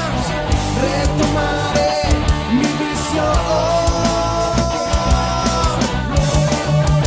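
Rock band music: drums keep a steady beat under long held melody notes that slide between pitches.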